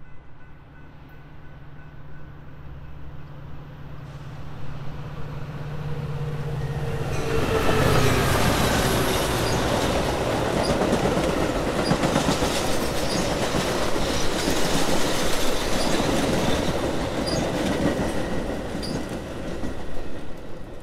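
Metra commuter train approaching and passing over a grade crossing. The rail noise builds and is loud from about seven seconds in, then comes the steady rumble of the passing cars with wheels clicking regularly over the rails.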